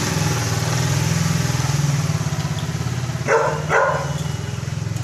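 Small motorcycle engine idling steadily, a low, fast putter, with two short, louder sounds over it about three and a half seconds in.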